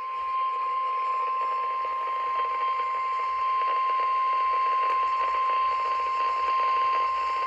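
NOAA Weather Radio 1050 Hz warning alert tone: a single steady, unbroken tone received over the radio with faint static hiss beneath it, the signal that a weather warning broadcast, here a severe thunderstorm warning, is about to follow.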